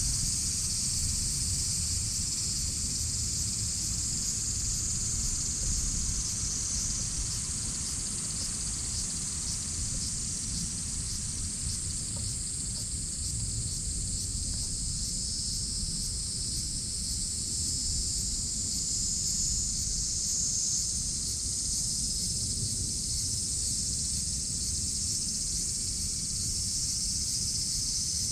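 A chorus of cicadas calling without a break, a dense high-pitched buzz, over a low rumble underneath.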